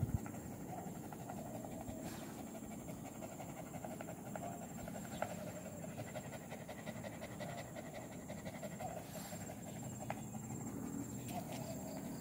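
Dog panting steadily and rapidly close to the microphone.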